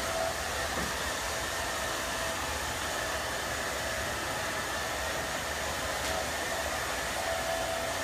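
Handheld hair dryer running steadily, a constant rush of air, as a hairpiece topper is blow-dried on a mannequin head.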